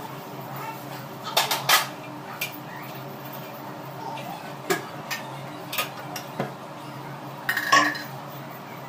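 A spatula scraping and knocking against a dosa tawa as the dosa is turned and lifted off, with scattered clinks of kitchenware. There are about half a dozen separate clinks, and the loudest clatter comes near the end.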